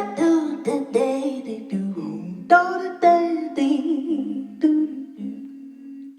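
A woman singing a wordless improvised melody in short phrases, over a steady low held accompaniment.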